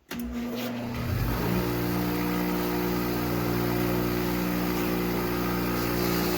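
Power wire brush (wire wheel on an electric tool) switching on, spinning up over about a second and a half, then running steadily with a wide hiss as it scours rust off the cast parts of an old blacksmith's post vise.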